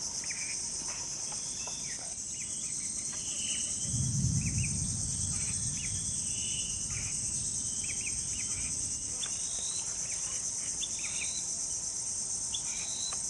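Steady high-pitched insect chorus, with short high chirps scattered through it. About four seconds in, a low rumble of wind on the microphone rises and fades over a couple of seconds.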